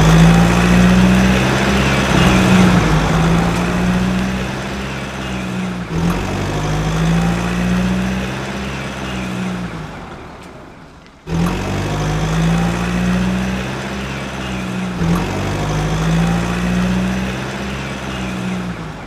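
Truck engine running and revving, its pitch rising and falling in repeated cycles of a few seconds. It fades away about ten seconds in and starts again abruptly a second later.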